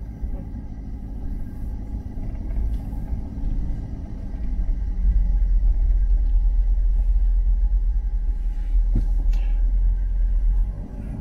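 Low rumble of a car rolling slowly along a paved lane, engine and tyre noise heard from inside the cabin, growing louder about four seconds in.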